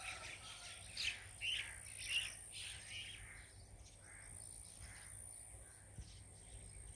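Birds calling and chirping in short repeated notes, loudest in the first three seconds and fainter after. A steady thin high-pitched tone runs beneath them.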